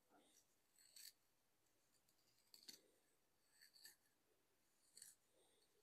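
Steel wool scraping on the end of a copper pipe in short, faint scratchy strokes about once a second, cleaning the pipe end for soldering.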